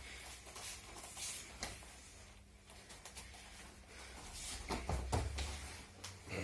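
Aikido training on mats: rustling movement and a few dull thumps, the heaviest about five seconds in.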